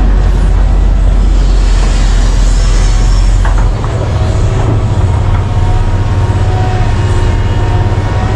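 Heavy diesel mining machinery running with a deep, steady rumble. About four seconds in the lowest rumble drops away and a higher drone with a faint steady whine takes over.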